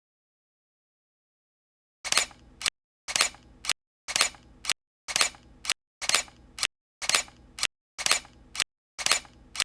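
A sharp clack followed by a lighter click, repeated eight times at a steady pace of about once a second, starting about two seconds in.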